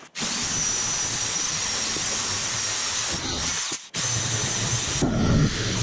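Handheld power shear cutting aluminum sheet along a marked line: a steady motor whine with a thin high tone. It cuts out for a moment just under four seconds in and starts again.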